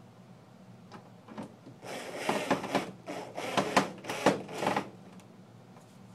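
Plastic TV casing being handled and pressed: several scraping, rattling bursts with sharp clicks, lasting about three seconds.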